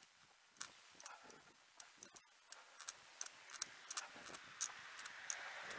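Running footsteps, light quick strikes at about three a second.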